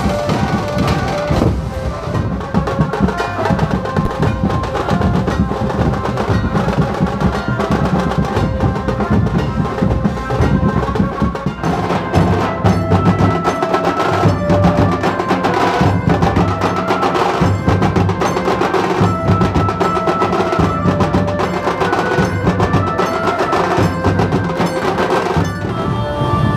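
Dhol-tasha drum troupe playing a fast, loud rhythm: big barrel-shaped dhol drums beaten in unison with the sharp, rapid stick strokes of tasha drums, with a held tune over the drumming.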